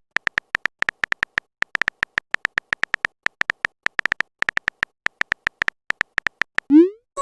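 Chat-app typing sound effect: a fast, uneven run of short high beeps, like keystrokes on a phone keyboard, with brief pauses between bursts. Near the end a quick rising bloop sounds.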